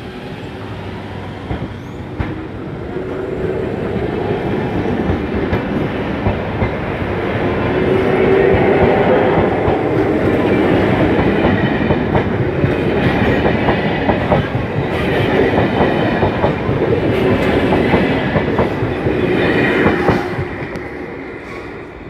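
Toshiba electric multiple unit pulling out of a station, its motors whining higher as it picks up speed and its wheels clattering over the rail joints as the cars pass close by. The sound builds over the first several seconds and falls away about 20 seconds in as the train moves off.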